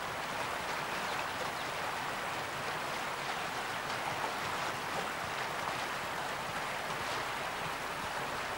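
Swift river water rushing steadily.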